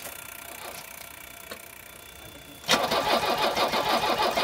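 Mercedes-Benz W123 sedan's engine being started after sitting for several months: a quiet pause, then, a little under three seconds in, a sudden loud, even, rapid beat as the engine turns over.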